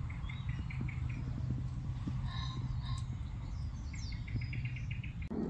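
Songbird chirping outdoors: a run of quick repeated chirps in the first second, then a faster run near the end, over a steady low rumble.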